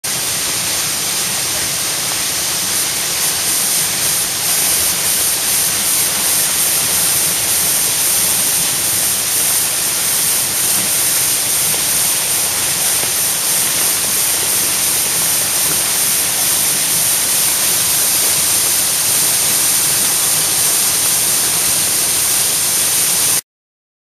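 Waterfall swollen with typhoon floodwater, pouring as a loud, steady rush of water; it cuts off suddenly near the end.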